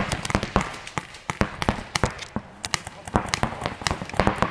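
Paintball markers firing in a speedball game: rapid, irregular sharp pops, several shots a second, some in quick runs.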